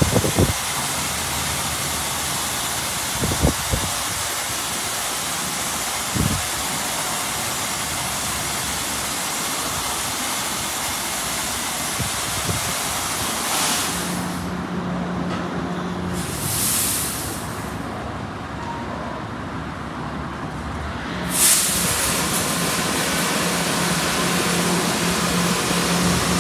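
Ryko SoftGloss Maxx 3 automatic car wash spraying high-pressure water over a car in touch-free mode, a steady hiss of spray. About halfway through the spray stops for several seconds, leaving a low steady machine hum and one short burst of spray, then the spray starts again over the hum.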